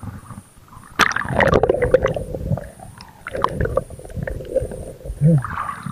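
Water splashing and gurgling over a camera's microphone as it is dunked below the surface. A sudden splash comes about a second in, followed by muffled underwater sloshing with a dull hum and another surge of splashing later on.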